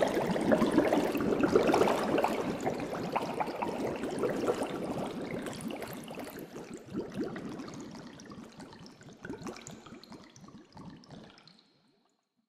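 Aquarium water trickling and bubbling, a dense crackle of small drips and bubbles that fades away gradually and is gone shortly before the end.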